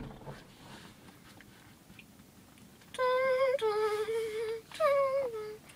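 A girl humming a short tune: three held notes, the last one sliding down in pitch.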